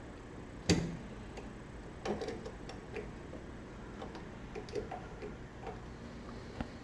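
Hand tools and metal parts being handled while fitting an engine drain plug: irregular clicks and light knocks, with one sharp knock about a second in.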